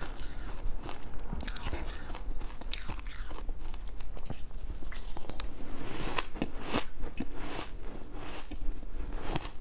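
A person biting into and crunching ice: an irregular run of sharp, crisp crunches.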